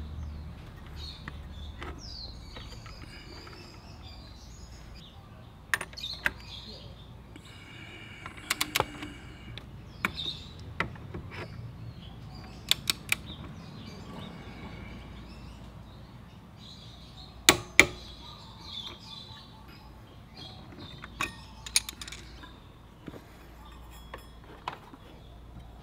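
Scattered sharp metallic clicks and clinks of hand tools working on a scooter's CVT: a socket and torque wrench on the variator nut, held by a clutch holder tool. The loudest is a close pair of clicks about two thirds of the way through. Birds chirp in the background.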